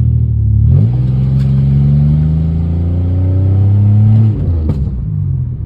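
Pontiac engine through a catless exhaust, heard from inside the car, pulling under acceleration: the revs climb steadily after a brief dip about a second in, a gear change, then fall away a little after four seconds as the throttle is eased off.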